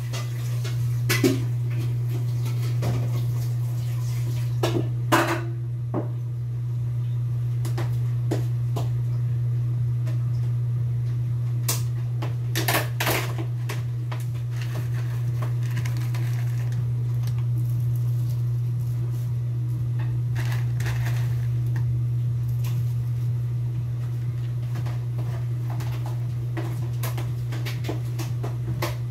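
Steady low hum from a stove with a large pan of jackfruit cooking in coconut milk, with scattered light clicks and knocks. The loudest knocks come about 12 to 13 seconds in.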